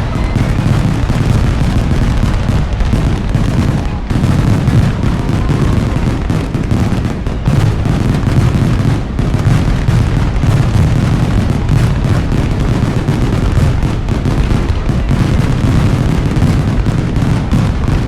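Fireworks exploding in a rapid, continuous barrage of overlapping booms and bangs.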